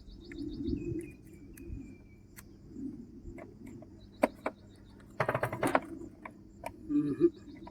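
Short, evenly pulsed high-pitched insect trills, like crickets, and a thin whistled bird call, with scattered sharp clicks and a brief burst of rapid clicking about five seconds in.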